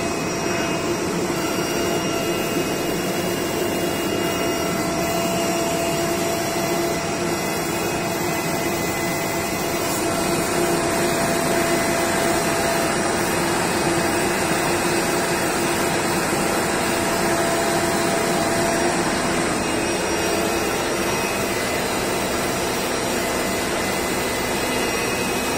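Esko flatbed digital cutting table running: a steady machine whir with a low hum, slightly louder from about ten seconds in.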